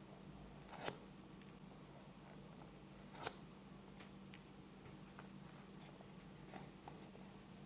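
Hands handling a cardboard smartphone box and working its paper seal strips loose, with two sharp taps, about a second in and again a little past three seconds, and a few faint ticks later. A faint steady hum lies under it.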